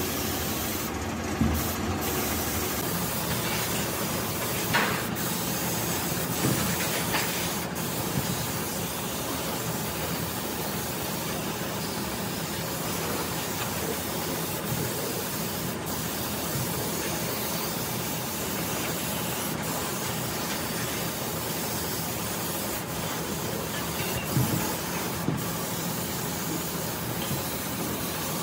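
Compressed-air gravity-feed paint spray gun hissing steadily as it sprays, the hiss letting up briefly about a second in, with a few faint knocks.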